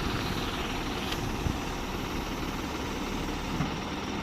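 A heavy diesel vehicle engine idling steadily, with a faint short click about a second in.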